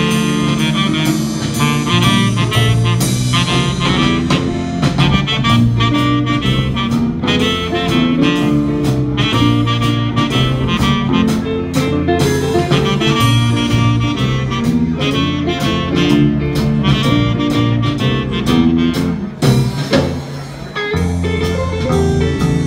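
Small live band playing an instrumental passage: saxophone over electric guitar, electric keyboard and drum kit, with a steady beat. The music drops back briefly near the end.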